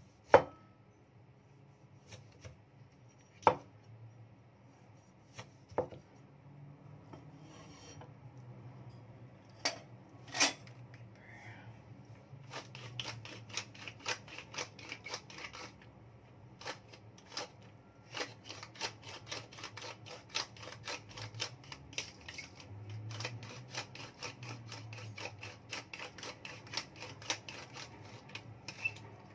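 A few sharp knife knocks on a wooden chopping board, then, from about twelve seconds in, a hand-twisted pepper mill grinding in long runs of rapid clicks, with a short pause partway through.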